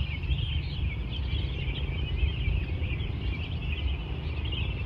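Many small birds chirping together in a dense dawn chorus, constant throughout, over a steady low rumble.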